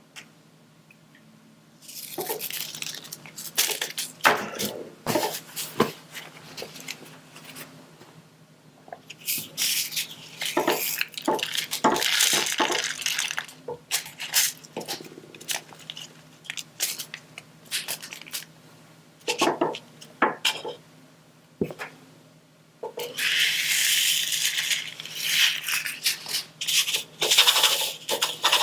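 Diamond painting work close to the microphone: scattered small taps and clicks, with three longer spells of crackly rustling, a little after the start, in the middle, and near the end.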